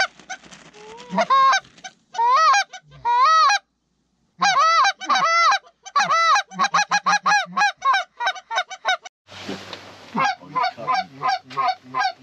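Hand-held Canada goose call blown in a string of honks, then a fast run of short clucks imitating feeding geese. There is a brief silent gap about four seconds in.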